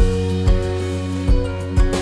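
Background music starting abruptly: sustained chords over low drum hits falling about every half second to second.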